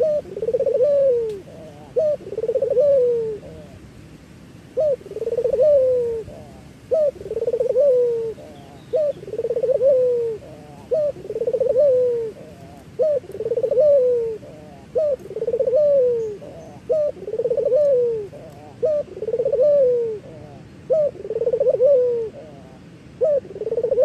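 Puter (Barbary dove) cooing over and over, about one coo every one and a half seconds, with a brief pause about four seconds in. Each coo is a short note followed by a longer rolling note that falls away at its end.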